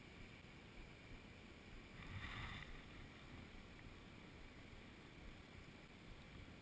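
Near silence: faint steady background hiss, with one brief soft noise about two seconds in.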